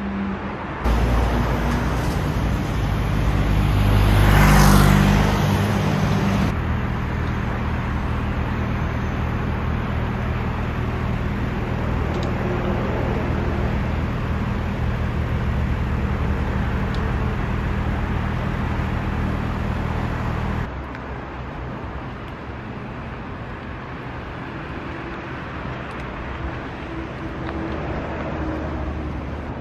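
Road traffic: a motor vehicle's engine running steadily nearby, with a loud swell about four seconds in like a vehicle passing close. About two-thirds of the way through the engine hum cuts off suddenly, leaving quieter road noise.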